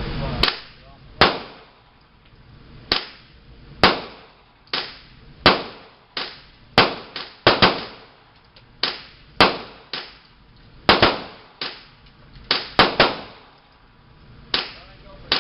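Gunshots at a shooting range: about twenty sharp cracks at irregular spacing, some in quick pairs or triplets, each with a short echoing tail.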